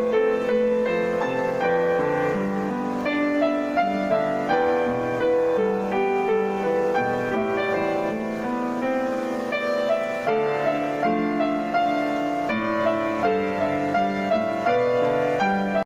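Piano music: a melodic piece played on piano, with a continuous run of notes that cuts off suddenly at the end.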